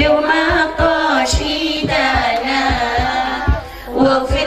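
A woman singing an Arabic Islamic devotional song (sholawat) into a microphone over a PA, with a held low tone and a drum beat about twice a second underneath.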